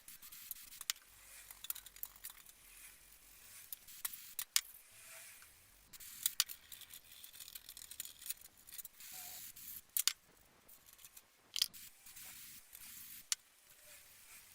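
Hand work on an antique table fan's parts: irregular sharp clicks and light scraping.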